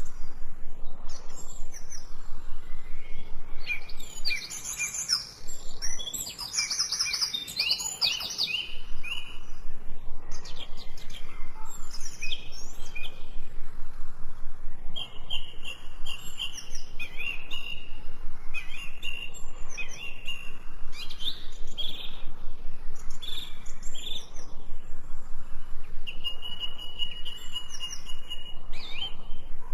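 Several songbirds chirping and singing at once, overlapping calls, with one bird's rapid, evenly repeated chirping running under the others.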